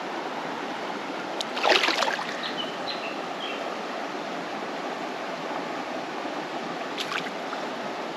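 Steady rushing of flowing creek water, with a brief louder burst of noise about two seconds in and a faint click near the end.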